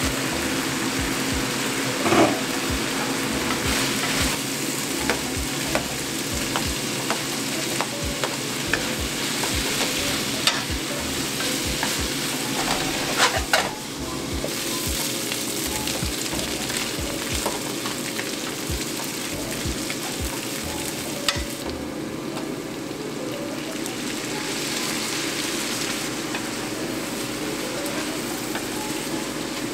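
Diced meat sizzling in a hot nonstick wok while a wooden spatula stirs and scrapes through it, with a few sharper knocks of the spatula against the pan.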